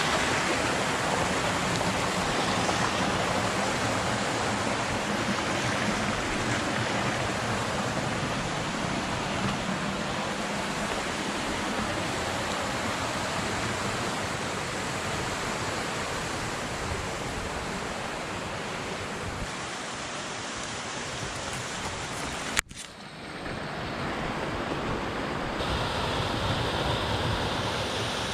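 Floodwater rushing through a normally dry desert wash and tumbling down the rocks: a steady, dense wash of water noise. About three quarters of the way through there is one sharp click with a brief drop in level, after which the water noise carries on.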